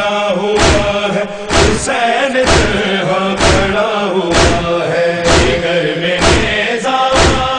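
A male chorus chants a noha refrain in long held notes. Under it, heavy hand strikes of matam (chest-beating) keep a steady beat about once a second.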